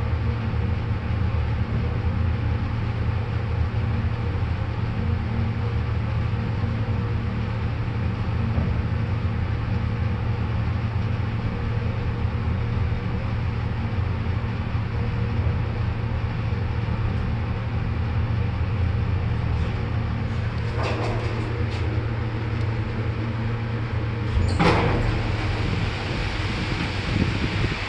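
1977 Fujitec lift car travelling upward with a steady low hum. A little after 20 s there is a short run of clicks as it comes to a stop, and about 25 s in the car door slides open with a clatter.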